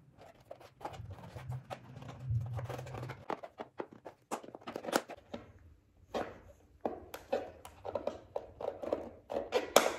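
Clear plastic sheet crinkling and crackling in irregular bursts as it is rolled and pressed tightly around damp sphagnum moss to form a moss pole.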